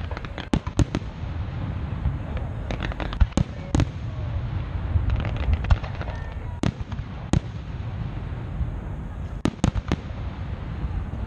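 Aerial fireworks shells bursting during a grand finale: a rapid, irregular series of sharp bangs, some in quick clusters, over a steady low rumble.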